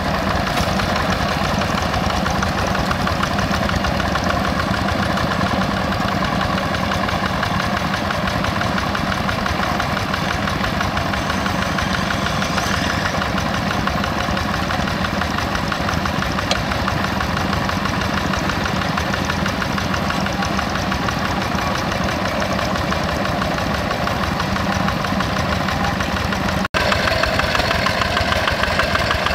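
Yanmar single-cylinder diesel engine of a Quick G1000 two-wheel hand tractor running steadily under plowing load in a flooded paddy, with a fast, even knocking beat. The sound breaks off for an instant near the end and resumes.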